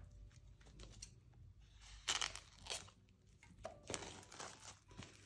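Thin plastic shrink-wrap being torn and crinkled off an album package in short, faint crackles, the loudest about two seconds in and again near four seconds.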